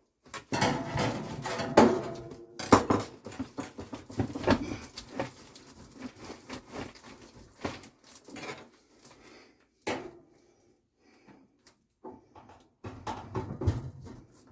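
Handling noise from working by hand behind a tumble dryer: irregular knocks, light clatter and rustling. It is busy for the first few seconds, thins out to occasional knocks, then picks up again near the end.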